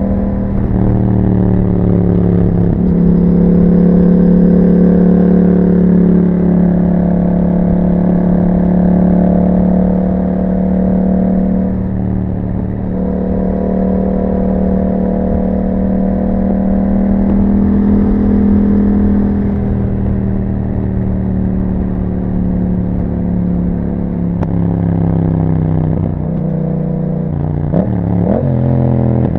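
2021 Yamaha MT-07's 689 cc parallel-twin engine running through an Akrapovič exhaust under way, its note rising and falling gently with the throttle. Near the end the pitch drops and climbs again quickly, as in a gear change.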